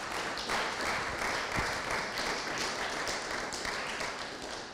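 Congregation applauding steadily.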